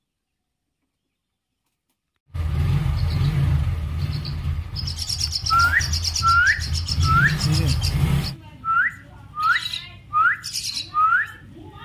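Near silence for about two seconds, then a low steady rumble that stops about eight seconds in. From about halfway through, a young common myna chick being hand-fed gives about seven short rising begging calls, less than a second apart, mixed with thin high cheeps.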